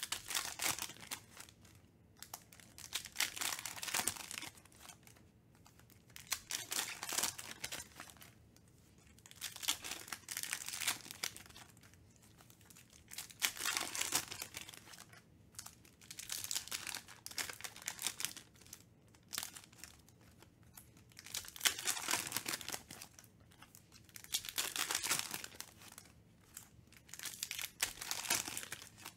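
Foil trading-card pack wrappers crinkling and tearing as they are ripped open by hand, in crackly bursts every few seconds.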